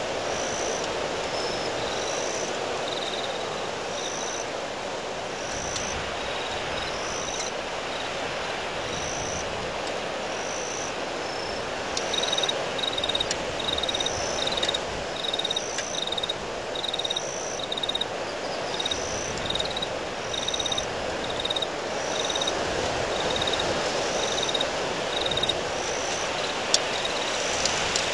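Windstorm gusting steadily, a constant rushing noise, with high chirps repeating about once a second over it. A second, slightly lower series of chirps joins in about twelve seconds in.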